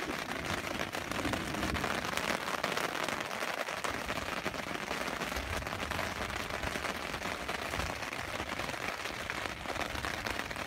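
Steady rain falling on a fabric hunting blind, heard from inside: a dense, even patter of many small drops.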